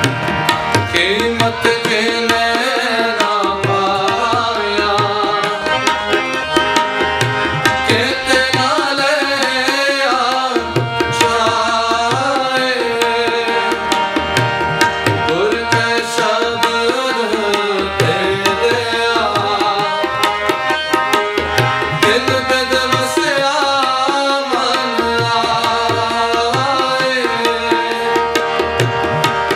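Sikh devotional kirtan music: tabla drumming a steady rhythm under held melody notes, with melodic phrases that rise and fall every few seconds.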